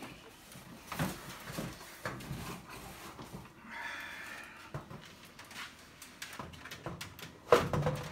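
Handling noises from work in a car's engine bay: scattered light knocks and clicks, with one sharp knock about seven and a half seconds in.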